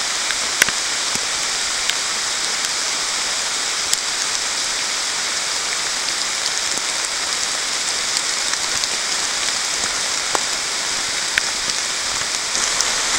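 Moderate rain falling steadily through a leafy forest canopy: an even hiss with a few sharp ticks of single drops scattered through it.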